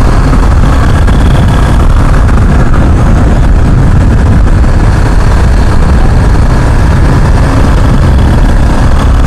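Steady wind rush on the microphone of a BMW G310GS motorcycle riding at an even speed, with the bike's single-cylinder engine running underneath.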